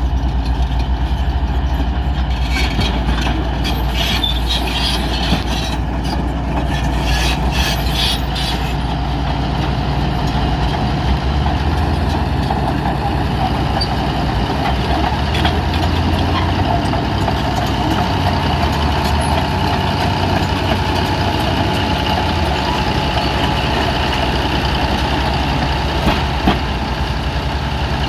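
Bulldozer's diesel engine running steadily under work, with high metallic clinking over the first several seconds.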